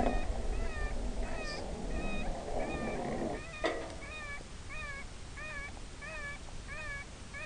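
High, mewing animal distress cry repeated at an even pace, about one note every 0.6 s, each note rising then falling. A brief knock sounds about halfway through.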